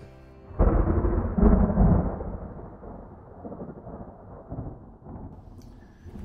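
Thunder sound effect: a sudden clap about half a second in, a second crack about a second later, then a rolling rumble that slowly fades.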